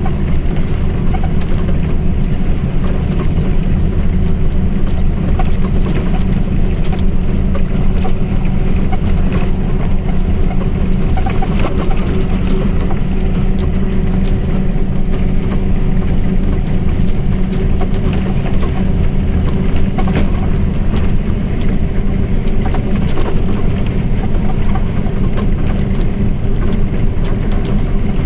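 Mercedes-Benz OF 1722 M bus running at steady speed: its diesel engine and drivetrain make a constant drone with a steady hum that holds its pitch, without revving or gear changes.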